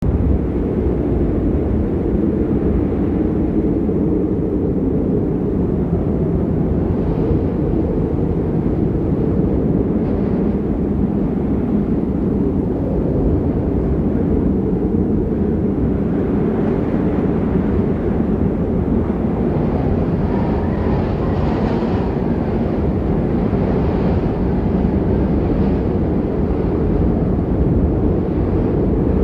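Snowstorm wind blowing steadily, a continuous low roar.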